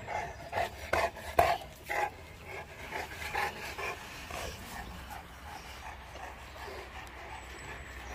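Dogue de Bordeaux panting close by, short breaths about two a second that die away after four or five seconds.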